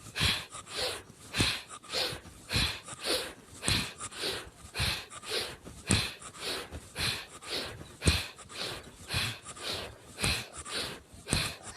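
Bhastrika pranayama breathing: forceful, deep in-breaths and out-breaths that are rushes of air, in a steady rhythm of about one full breath a second.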